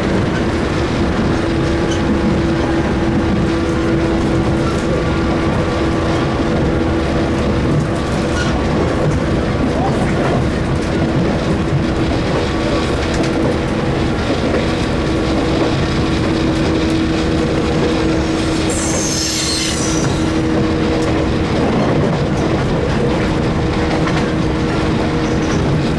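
JR West 117 series electric train running, heard from inside the car: a steady hum from its MT54 resistance-controlled traction motors over the rumble of the wheels on the track. A brief high-pitched rushing sound cuts in about three-quarters of the way through.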